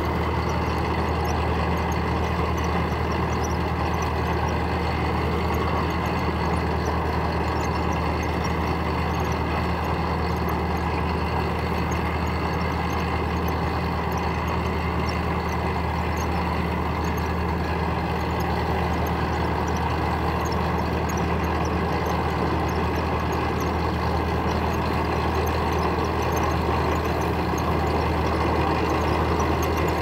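Tractor engine running steadily under load while pulling a Hennipman two-row sweet potato harvester, with a constant light clatter from the harvester's digging chain elevator as soil and tubers shake through it.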